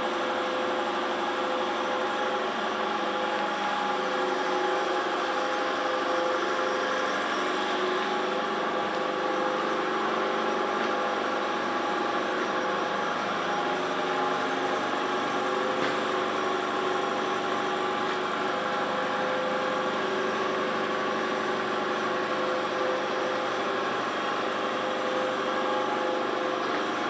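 A motor running steadily: an unchanging mechanical drone with several steady tones.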